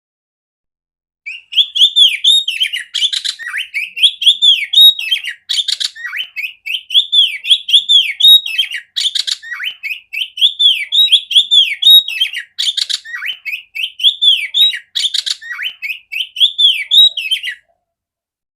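Oriental magpie-robin (kacer) singing a loud, clear song of quickly repeated rising-and-falling whistled notes with sharp chips between phrases. It starts about a second in and cuts off abruptly near the end.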